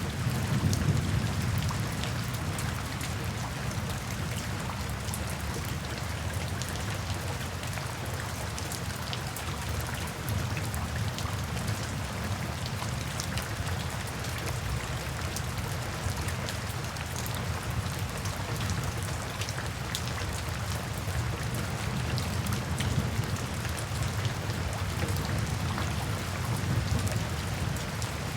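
Steady rainfall with many individual drops ticking, over a light low rumble of thunder that is strongest in the first couple of seconds and swells again near the end.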